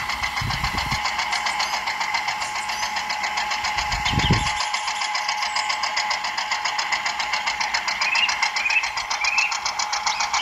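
Small electric motor and plastic gearbox of a miniature toy tractor running steadily as it drags a cultivator through sand, a fast, even buzzing whine. Two short low thumps come near the start and about four seconds in.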